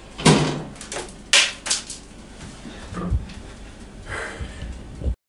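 Knocks and clunks of a cast-iron pot and a small countertop oven as the oven is loaded and its door is shut: a loud clunk just after the start, a sharp knock about a second later, then lighter knocks and a dull thump about three seconds in.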